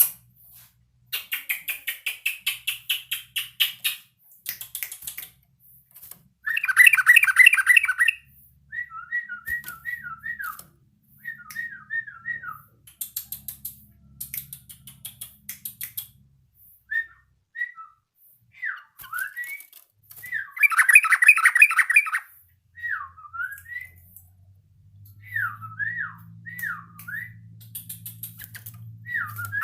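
Yellow-vented bulbul practising its song: bursts of rapid, harsh chattering, three times, with short swooping whistled notes in between. This is typical of a young bird still learning its calls.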